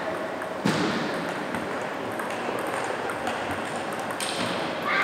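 Table tennis ball clicking sharply off the paddles and table in a rally, over the steady background of a sports hall. Applause and voices break out at the very end as the point is won.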